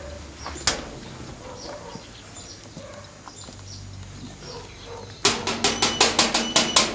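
Knocking on a sheet-metal gate door: a fast run of sharp, ringing metallic raps, about six a second, starting about five seconds in. A single sharp click comes earlier, under a second in.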